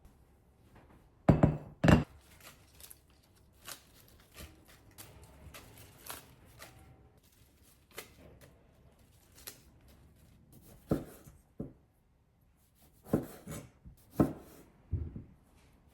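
Irregular knocks and clatter of kitchen food preparation: a knife on a cutting board and utensils being handled and set down. Two loud knocks come about a second and a half in, and more clusters come near the end.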